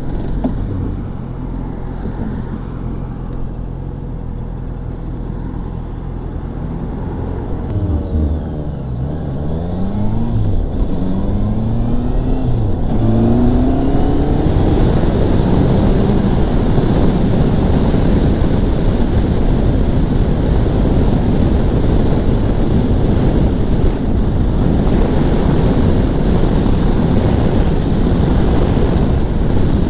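Honda CBR650F's inline-four engine pulling away from a near stop, running low at first, then its pitch rising in a series of steps as it accelerates up through the gears. From about halfway in, steady wind noise on the microphone at road speed mostly covers the engine.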